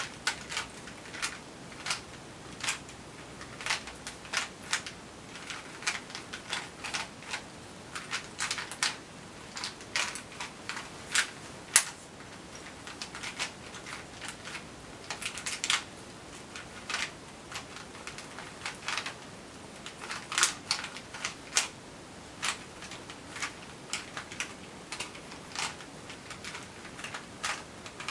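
A Rubik's Cube being turned by hand: irregular plastic clicks as its layers are twisted, in quick runs broken by short pauses.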